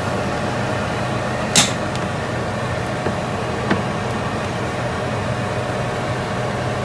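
Steady hum of a running kitchen appliance, with one sharp click about a second and a half in and a fainter tick a couple of seconds later.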